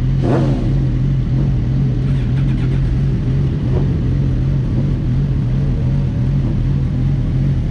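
Sport motorcycle engine idling steadily, with a quick rev that rises and falls away just after the start.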